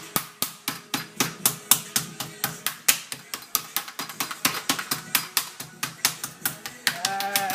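Small meat mallet pounding raw chicken breast in rapid, even blows, about five a second, flattening it to tenderise it.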